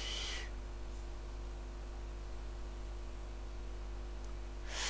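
Room tone: a steady low electrical hum with faint hiss. A short burst of hissy noise comes at the very start and another just before the end.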